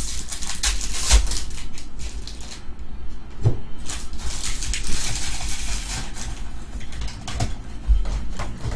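Trading cards being handled and slid against one another: scraping and rustling with scattered clicks and taps, loudest about a second in and again from about four to six seconds in.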